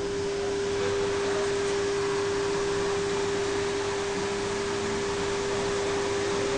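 A steady single-pitched electronic tone inside an electric passenger train carriage, over the even hiss of the carriage's running equipment and ventilation.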